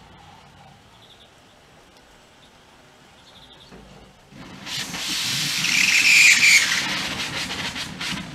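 Narrow-gauge steam locomotive releasing steam: a loud hiss starts suddenly about four seconds in, carries a whistling edge in its middle, and dies away about four seconds later.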